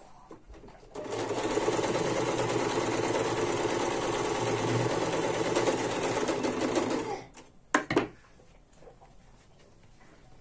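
Domestic electric sewing machine stitching a seam in fabric, running at a steady fast speed for about six seconds and then stopping. Two sharp clicks follow shortly after it stops.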